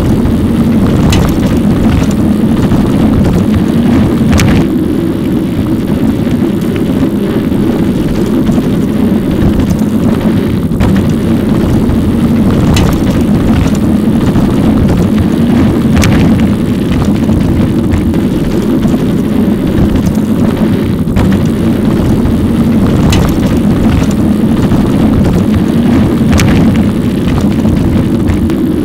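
Steady loud rumble of wind and road noise picked up by a camera on a moving e-bike, with a few faint sharp clicks.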